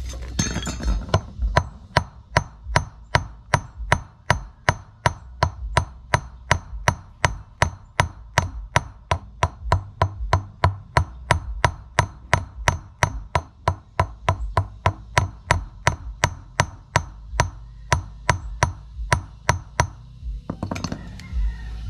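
Hand hammer striking the end of a stainless steel wire laid on a rusty iron block, flattening it into the eye of a homemade fishing hook. Steady, even blows, about three a second, each with a short metallic ring; they begin about a second and a half in and stop near the end.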